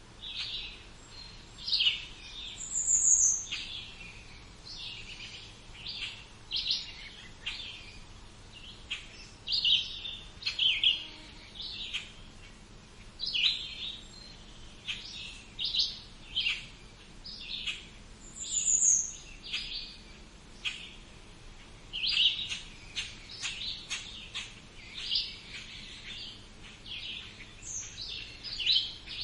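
Mixed songbirds singing: short chirping phrases repeat every second or two, with a high slurred whistle heard twice.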